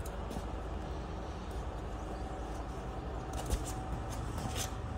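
Steady low rumble, with a faint steady hum and a few light clicks.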